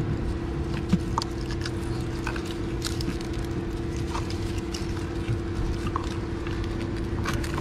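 Gloved hands wrapping cloth wiring-harness tape around an engine-bay wiring loom: scattered light clicks and rustles of the tape and wires, over a steady hum.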